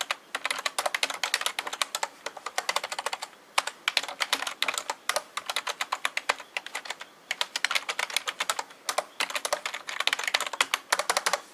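Fast typing on an NEC KFRFEB212D keyboard, which the uploader takes to be an ordinary membrane keyboard: quick runs of key presses broken by a few short pauses.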